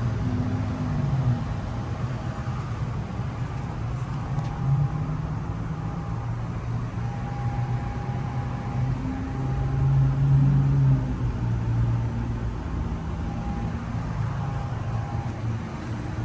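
Outdoor central air conditioner condensing units running: a steady low compressor hum with fan noise, and a faint whine that comes and goes.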